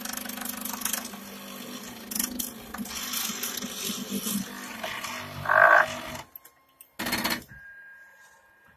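Wanhao Duplicator i3 3D printer's stepper motors rattling and clicking as the machine moves, with a louder burst about five and a half seconds in; the owner puts the misbehaviour down to the Y-axis endstop. The noise cuts off suddenly just after six seconds, followed by one short loud burst and then a faint steady whine.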